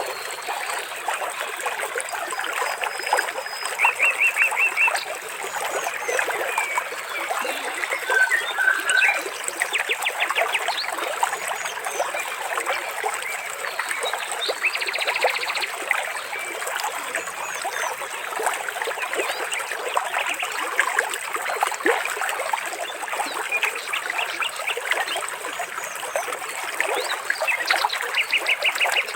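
Water trickling and splashing steadily, with birds calling over it. Four times there is a short burst of rapid trilled notes.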